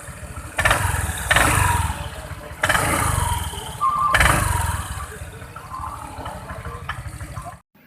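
Honda Vario 125 scooter's single-cylinder engine and CVT revved in short throttle blips, four sharp surges that each die back toward idle, checked for a 'krek krek' noise from the CVT. The sound cuts off abruptly near the end.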